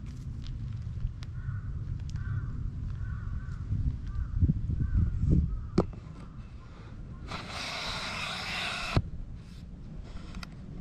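A run of about eight short, rough calls in the first half, over a low wind rumble on the microphone. After it comes a loud hiss lasting about a second and a half.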